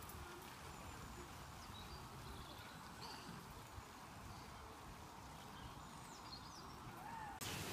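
Faint outdoor ambience: a steady low hiss with a few short, high bird chirps scattered through it. The hiss gets louder just before the end.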